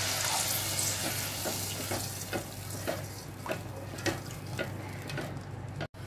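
Water poured into a pot of hot oil and sautéed spices, sizzling and hissing loudly at first and then slowly dying down, with light spatula knocks and scrapes against the pot about every half second.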